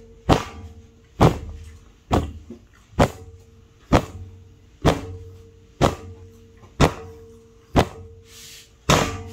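A fist pounding a tabletop about once a second, ten heavy thumps in a row, each ringing briefly, over a faint steady tone.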